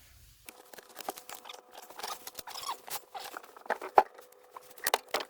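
Irregular scratching, rustling and sharp clicks of hands working on the motorhome dashboard and its wiring, with one loud click about four seconds in. A faint steady hum runs underneath.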